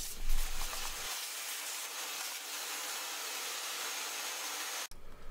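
Vacuum cleaner sucking up steel milling chips from a milling machine's chip tray: a steady rushing hiss that cuts off abruptly near the end.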